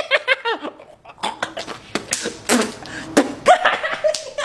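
A man laughing and snickering, with a few short, breathy noises in the middle before the laughing voice returns near the end.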